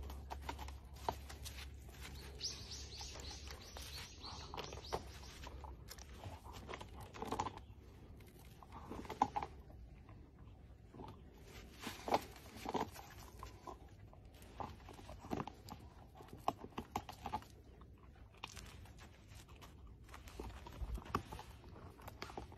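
Two dogs, a Rottweiler and a Doberman, gnawing on a shared wooden stick: scattered crunches and clicks of teeth on wood.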